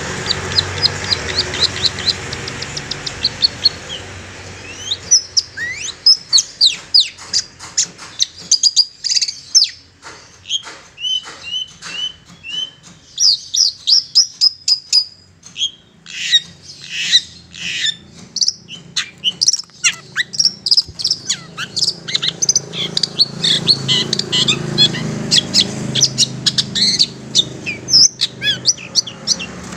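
Long-tailed shrike singing: a quick run of short, high, repeated notes slowing over the first few seconds, then a fast, varied string of sharp chirps and sweeping whistled notes. This is the wild-sounding shrike song used as a lure call to draw in wild shrikes.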